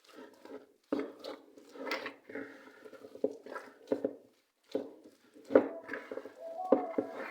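Scone dough being mixed by hand in a bowl after milk is added, with irregular handling knocks and rustles against the bowl.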